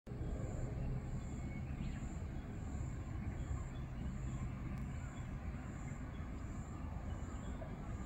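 Outdoor ambience: a steady low background rumble, with a faint high-pitched pulse repeating about every two-thirds of a second.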